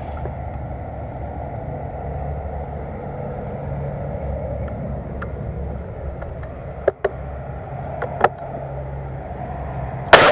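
Steady low rumble of wind and handling on the microphone, with a few sharp snaps of airsoft guns firing about seven and eight seconds in and a loud crack near the end.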